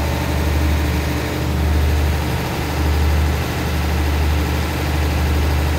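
Diesel engine of a stopped passenger train idling: a steady low rumble that swells and eases slowly.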